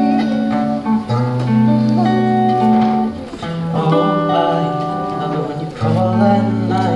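Acoustic guitar played live, chords picked and strummed, the notes changing every second or two.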